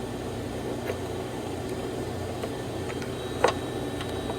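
Ford 3.5 EcoBoost V6 in a 2013 F-150 idling steadily, with a faint click about a second in and a sharper click about three and a half seconds in.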